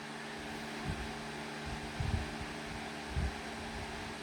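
Steady hum of a mechanical fan, with three soft low thumps about a second apart.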